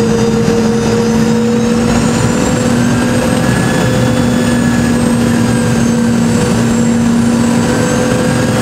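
Inside a Boeing 717 cabin on approach: its rear-mounted Rolls-Royce BR715 turbofans and the airflow make a steady, loud drone with humming tones. Their pitch nudges up slightly two to three seconds in.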